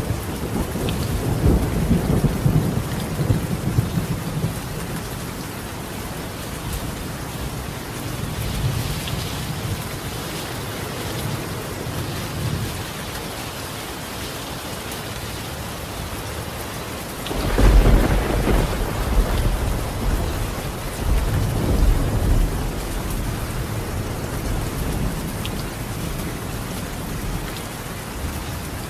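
Steady rain falling on a tiled roof, with thunder rumbling low in the first few seconds. About two-thirds of the way through, a louder thunderclap breaks in suddenly and rolls on for several seconds.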